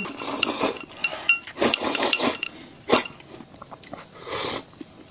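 Eating sounds: a few short bursts of mouth noise from big bites of food, with light clinks of cutlery against dishes and one sharp knock about three seconds in.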